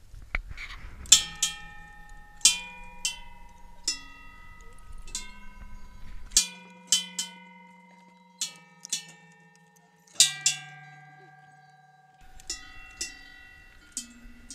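Small metal bells hung on a wooden pole, struck one at a time by hand. There are more than a dozen strikes at an uneven pace, some in quick pairs, each leaving a clear ringing note that slowly dies away and overlaps the next.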